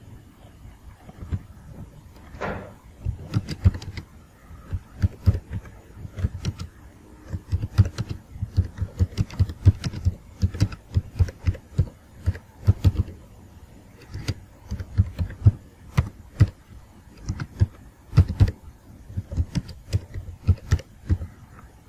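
Computer keyboard being typed on: irregular keystroke clicks, each with a dull thump, several a second in uneven runs with short pauses.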